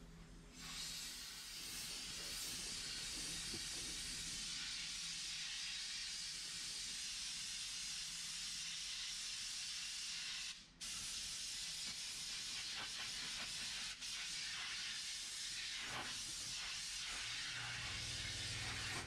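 Compressed air hissing steadily from an air chuck at light trigger pressure, blowing cleaner residue and debris out of radiator fins; it cuts out briefly about halfway through.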